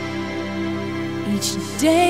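Slow, soft music of held chords; a singing voice comes in near the end.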